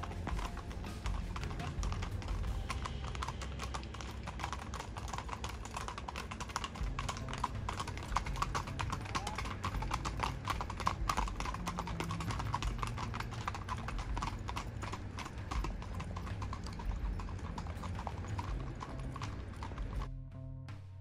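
Hooves of three horses clip-clopping on a packed dirt track, many overlapping, uneven hoofbeats. The hoofbeats fade out near the end.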